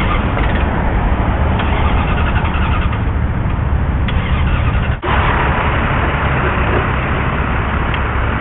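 Steady road traffic noise with a heavy low rumble, dipping briefly about five seconds in.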